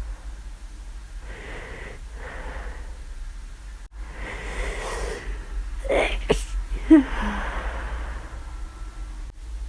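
Flu sneezing: a few breathy, hitching inhales, then a sharp sneeze about six seconds in, followed by a breathy exhale.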